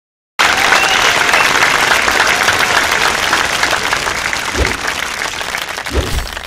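Crowd applause sound effect: dense clapping that starts abruptly after a short silence and slowly thins out. Two short low thuds sound near the end.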